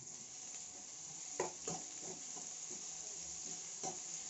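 Sliced onion, green chilli and crushed ginger-garlic frying in coconut oil in an aluminium wok with a steady sizzle, while a spatula stirs and scrapes the pan a few times.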